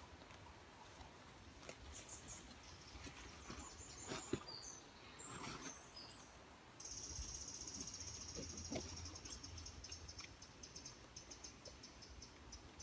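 Quiet woodland ambience: small birds chirping high, with a few rustles and knocks from handling a backpack about four to six seconds in. From about seven seconds a high, fast-pulsed trill sets in and keeps going.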